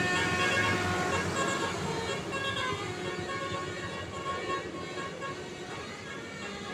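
Tour bus telolet horn playing a tune of several notes over road traffic, gradually growing fainter.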